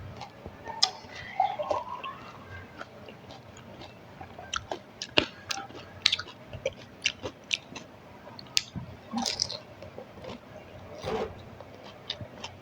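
A person biting into and chewing pani puri (fuchka): crisp fried shells crunching, with many short sharp cracks and wet chewing.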